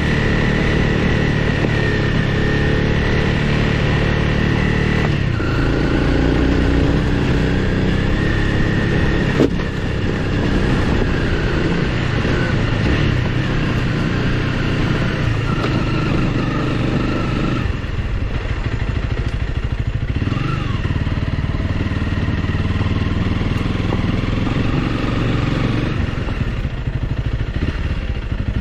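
Honda CRF300L Rally's single-cylinder engine running steadily as the motorcycle is ridden along a dirt road, with small changes in pitch. A single sharp knock comes about nine and a half seconds in.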